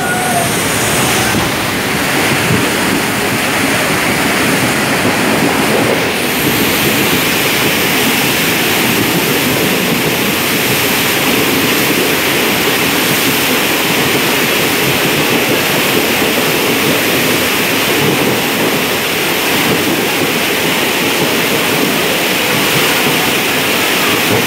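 Passenger train running through floodwater over the tracks, its wheels throwing up spray: a loud, steady rush of churning water.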